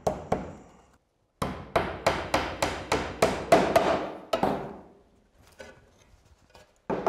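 The point of a hammer tapping on a natural roofing slate laid over a timber batten, holing or marking it: two taps, then a quick run of about a dozen, about four a second.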